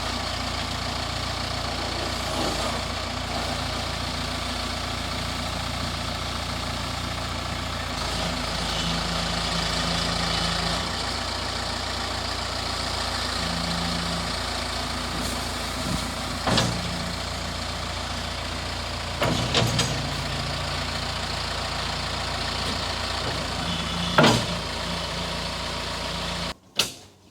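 Backhoe's diesel engine running steadily, its pitch rising briefly a couple of times, with three sharp knocks in the second half.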